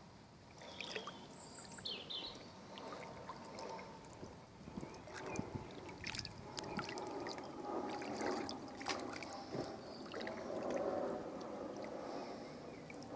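Kayak paddle strokes dipping and splashing in river water, with irregular splashes and drips. A few short high chirps sound about a second in.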